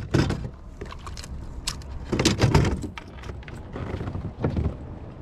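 Irregular knocks, clatters and rattles from gear being handled in a kayak, with a cluster of them about halfway through.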